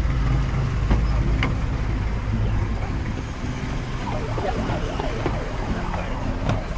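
Steady low rumble of street traffic and a vehicle engine, with a few sharp clicks about one and one-and-a-half seconds in and faint voices in the background later on.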